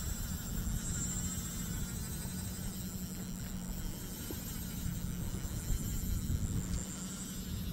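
Small boat's engine running steadily under way, a low, even hum, with a faint high-pitched whine above it.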